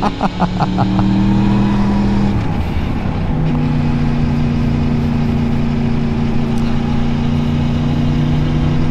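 Motorcycle engine running on the move; its note shifts about two to three seconds in, then holds steady.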